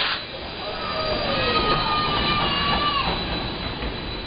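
Railway carriage wheels squealing against the rails as an open carriage rolls past, over the low rumble of the moving train. The wavering squeal comes in about half a second in and stops at about three seconds.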